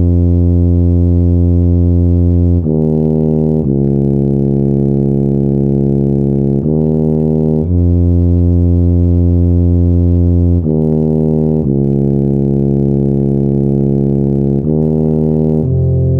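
Computer notation playback of a four-part sousaphone fanfare: loud, slow low brass notes in step, a long note held about three seconds then a one-second note, over and over (F, E♭, D♭, E♭ in the bass), with the upper parts moving higher near the end. The notes are perfectly even in loudness and change cleanly, as sampled playback does.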